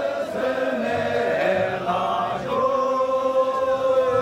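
A group of men singing together in long, drawn-out notes, like a chant, the main note sagging slowly in pitch near the end.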